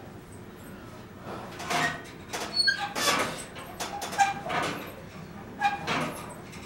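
Home gym leg-extension station creaking and clunking as it is worked through repetitions, with short squeaks mixed in. It starts about a second in.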